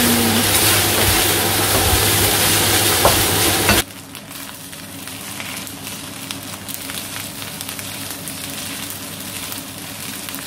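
Egg fried rice sizzling in a non-stick pan while it is stirred with a wooden spatula. The sizzle drops sharply about four seconds in, and after that the spatula's scrapes and taps against the pan come through as many small ticks.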